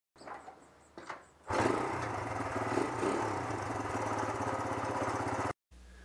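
A small petrol engine starts after a couple of brief sounds and runs steadily with a fast, even beat, then cuts off abruptly about four seconds later.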